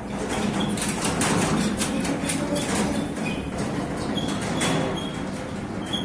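A moving car heard from inside the cabin: steady road and engine noise with a low hum, and many irregular clicks over it.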